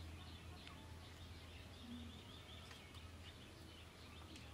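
Near silence: faint small birds chirping over a steady low hum.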